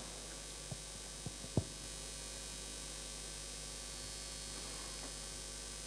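Steady low electrical mains hum with faint room tone, broken by three faint clicks in the first two seconds, the last a little louder.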